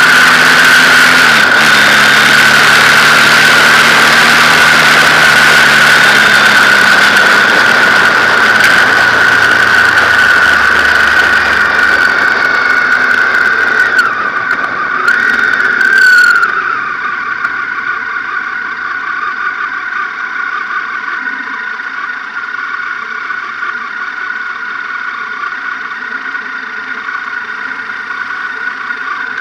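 Wind rushing over a motorcycle-mounted microphone, with a BMW R1200GS boxer-twin engine running underneath and a steady high-pitched whine throughout. A little past halfway the wind noise drops away as the bike slows, leaving the engine running quietly at low speed.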